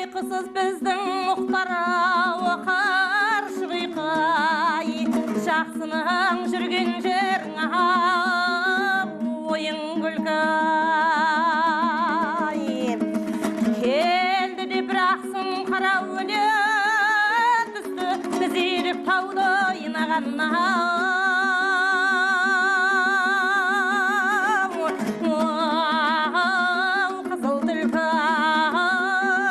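Kazakh folk song in the western singing-school style: a voice holding long notes with wide vibrato over a plucked-string accompaniment that keeps steady low notes.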